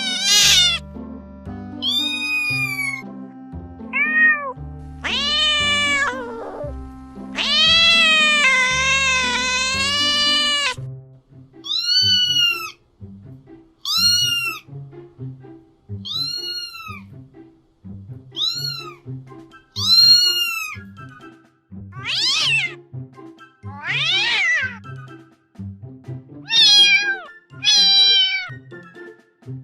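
Cat meows over background music: a few drawn-out meows, one held for about three seconds, then a run of short meows about two seconds apart, and near the end several sharper, higher cries.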